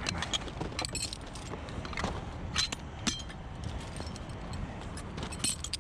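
Metal carabiners and rigging hardware clinking and jangling as they are handled, a string of sharp bright clinks at irregular intervals over a steady low rumble.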